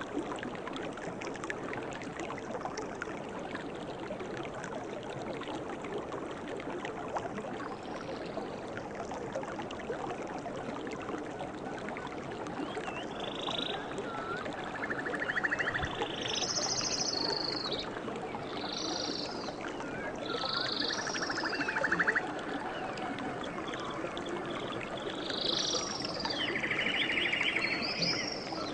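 A river or stream flowing steadily. From about halfway on, birds call over it with short whistled notes and a few buzzy trills.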